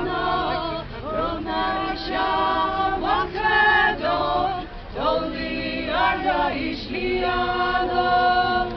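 A choir singing a slow a cappella chant, several voices in harmony holding long notes in phrases of a second or two.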